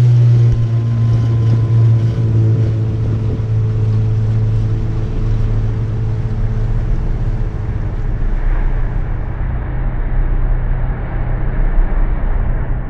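Speedboat engine running steadily under way, a constant low drone, with a steady rush of wind and water noise over it.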